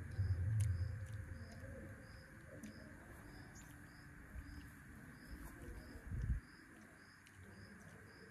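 Open countryside ambience: an insect chirping in a steady high pip about twice a second, with birds calling faintly. A low rumble fills the first second, and a brief low thump comes about six seconds in.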